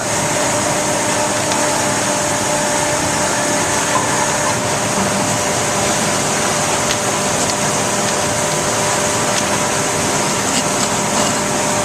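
Steady factory-floor machinery noise: an even rush of air with a hum of several constant tones, and a few faint ticks.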